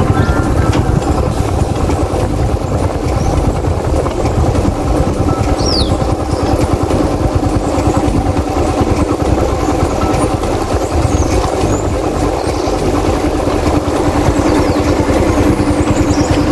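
Yamaha YBR 125's single-cylinder four-stroke engine running at a steady pitch as the motorcycle cruises, heard from on the bike over a heavy low rumble.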